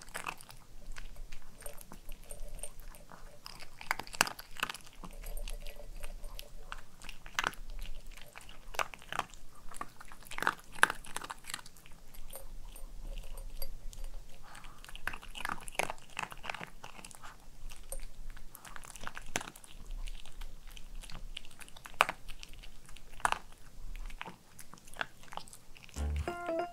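White Pomeranian crunching dry dog kibble from a plate, close-miked: a quick, irregular run of sharp crunches and chewing.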